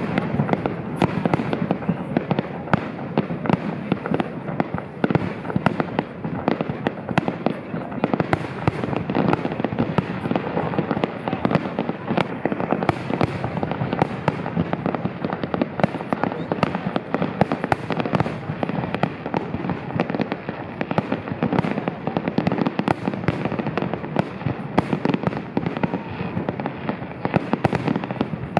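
A 'Japanese Cherry Blossom Tree' firework going off in a dense, unbroken crackle of countless small pops.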